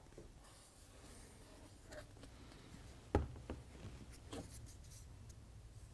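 Faint handling noises on a workbench: light rubbing with a few small clicks and taps, the sharpest just after three seconds in.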